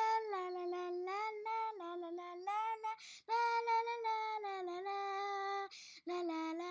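A child singing a wordless tune: held notes that glide up and down between pitches, broken by two short pauses, about three and six seconds in.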